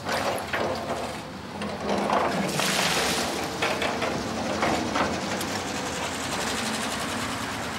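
Building-site work noise at a house being re-blocked: several knocks in the first few seconds, then a fast, even mechanical rattle.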